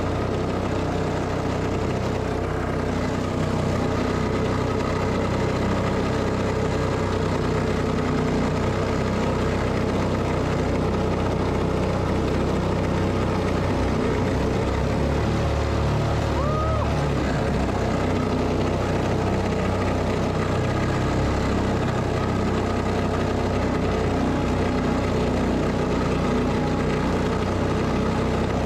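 Honda-clone 212cc single-cylinder engine driving a mini tunnel-hull boat's surface drive, running steadily under load against a fast river current, with water rushing along the hull.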